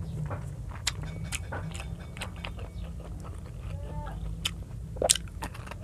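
Close-miked chewing of adobo chicken neck: wet mouth clicks and smacks come irregularly, the sharpest one near the end, over a steady low hum.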